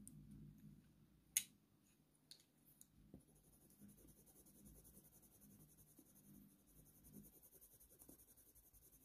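Near silence: faint, irregular scratching of a Faber-Castell Polychromos coloured pencil shading lightly on watercolour paper, with one sharp click about a second and a half in and a few smaller ticks after it.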